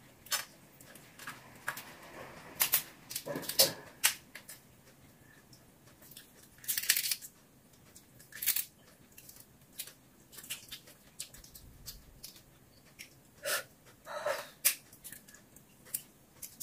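Close-up eating sounds: irregular crackles, clicks and tearing as shrimp shells are peeled apart by hand, with a few louder cracks about 3 to 4 seconds in, around 7 seconds and near 14 seconds.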